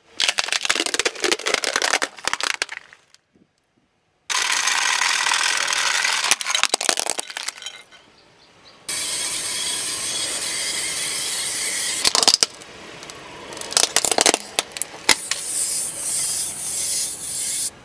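Plastic toys cracking and crunching under a car tyre, in several separate spells of dense crackling with sharp snaps, broken by a short silence about three seconds in.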